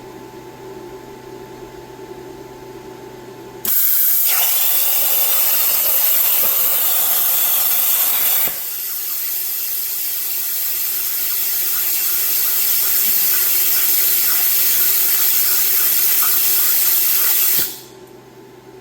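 CNC plasma torch cutting steel: after a few seconds of steady hum, the arc fires about four seconds in with a sudden loud, even hiss that drops in level for a moment partway through, creeps back up, and cuts off abruptly near the end.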